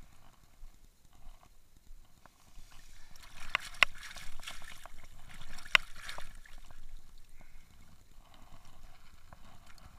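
A trout thrashing in a landing net held in shallow water, splashing, with a few sharp slaps of water about midway.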